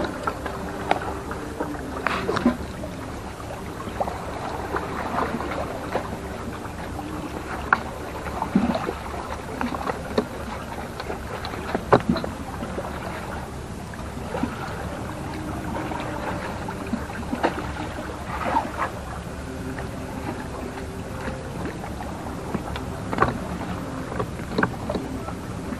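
Sea water sloshing against the breakwater rocks under a steady low hum, with scattered clicks and knocks of fishing tackle being handled.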